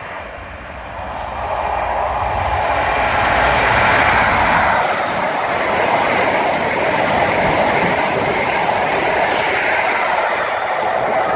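InterCity 125 high-speed train, Class 43 diesel power cars and Mark 3 coaches, passing through a station at speed. The leading power car's engine rumble swells over the first few seconds and goes by. The coaches then rush past with a steady roar and clatter of wheels on the rails, and the rear power car passes near the end.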